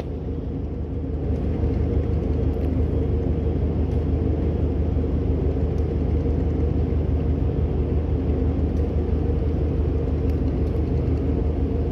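Ship engines running during unberthing: a steady low rumble with a droning hum, building a little over the first second or two and then holding.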